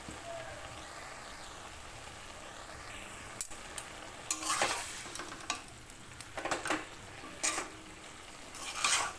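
A metal spatula stirring and scraping bottle gourd greens and fried potato pieces in a metal wok over a faint steady sizzle. From about three and a half seconds in come a handful of short, louder scraping strokes against the pan.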